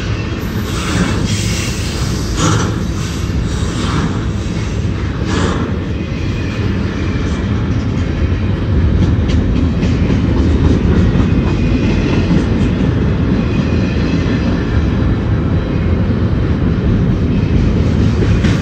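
Freight train of double-stack intermodal well cars rolling past close by, a steady heavy rumble of steel wheels on rail. A few sharp clanks come in the first six seconds, and it gets a little louder from about nine seconds in.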